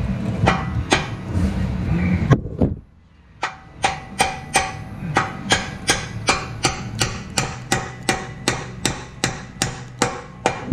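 Hand tool working the nut of a U-bolt exhaust clamp on a car's exhaust pipe. After some rumbling handling noise and a short pause, a steady run of sharp metallic clicks follows, about three a second, each with a brief ringing note from the pipe.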